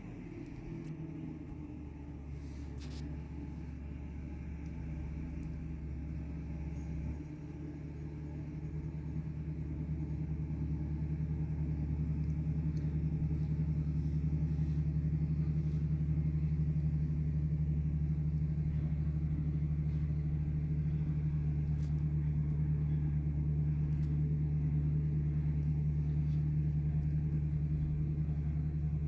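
A vehicle engine running steadily with a low hum. Its note shifts about seven seconds in, and it grows louder over the next few seconds before holding steady.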